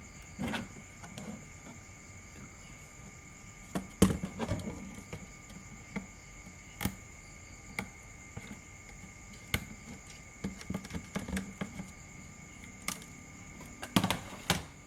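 Irregular clicks and knocks of handling, sharpest about four seconds in and again near the end, over a faint steady high-pitched whine.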